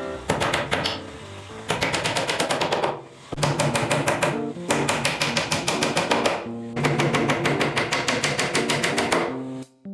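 Claw hammer striking the top edge of a plywood wardrobe in rapid runs of blows, about ten a second, in several bursts with short pauses between them. Background music plays underneath.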